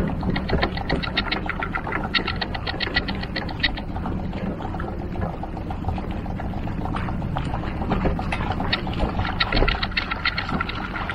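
A boat's outboard motor runs with a low, steady rumble. Over it comes rapid, even clicking, about ten clicks a second, in two bouts of a few seconds each.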